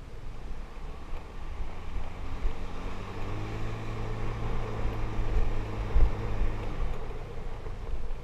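Motorbike engine pulling up a steep dirt road. Its steady note comes up out of the rumble about two seconds in and drops away near the end, with wind buffeting the microphone throughout.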